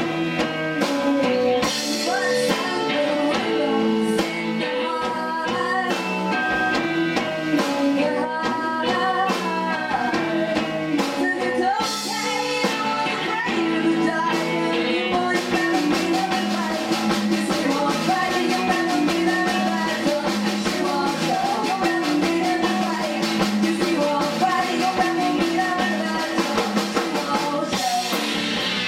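Indie rock band playing live: drum kit, electric guitars and bass guitar, with a woman singing lead.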